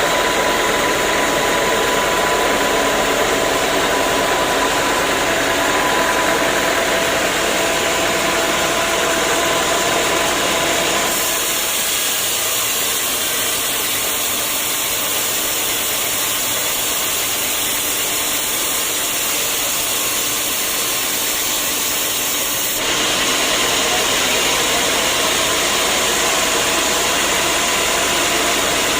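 Sawmill machinery running steadily, a dense engine-and-saw noise. The sound shifts abruptly twice, about a third of the way in and again near the end.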